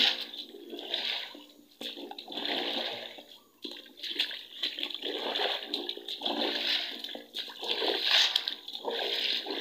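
Rubber boots sloshing and splashing through shallow, fast-running water, in repeated surges about once a second.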